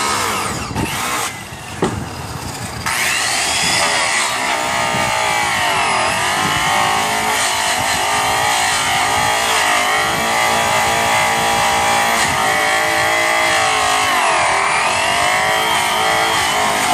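High-speed polisher with a buffing wheel loaded with brown Tripoli, running against an aluminum truck wheel to cut the oxidized metal. About three seconds in it settles into a steady high whine, and its pitch dips briefly twice.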